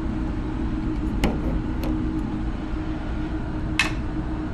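Single-pin picking of a Sargent lever lock cylinder: three short sharp clicks, the loudest near the end, over a steady low hum.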